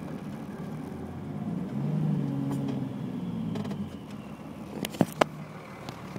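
Dodge Cummins 5.9-litre inline-six turbo diesel running with a faint high whistle from its HX35 turbo. The engine grows louder for about two seconds, then drops back, and two sharp clicks follow about five seconds in.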